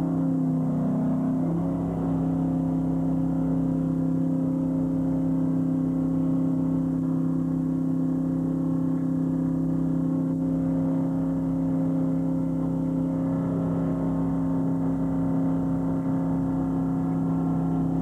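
Fishing trawler's engine running: a steady, unchanging drone with a constant low hum.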